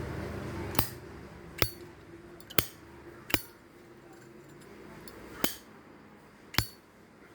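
Zippo lighter's hinged metal lid clicking open and shut: six sharp metallic clicks at uneven intervals.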